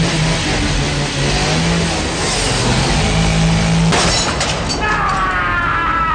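Lightsaber sound font playing on a saber board: a steady low hum under loud whooshing swing noise, then a sharp clash about four seconds in, followed by ringing tones that slide in pitch.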